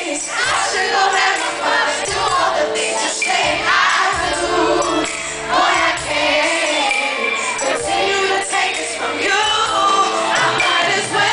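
Live R&B concert heard from the audience: a woman singing lead over a live band, with backing singers.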